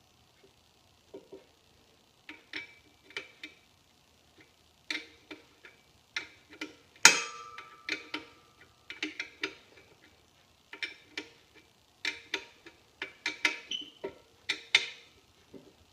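Irregular metal clicks and clinks of a wrench working on hose fittings, with one loud clank about seven seconds in that rings briefly.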